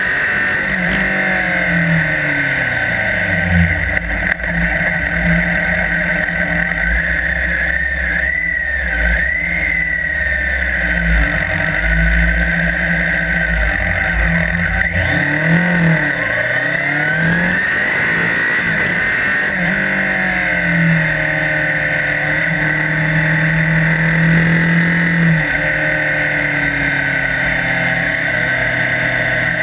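Police motorcycle engine running hard, its pitch rising and falling again and again as it accelerates and slows. A steady high whine sits over it.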